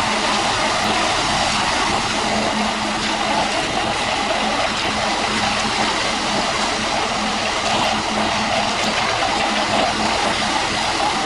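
Construction machinery running steadily: a constant engine hum under a dense, even mechanical noise.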